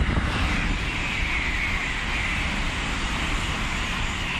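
E2-series Shinkansen passing at high speed: a loud, steady rushing hiss of the train going by.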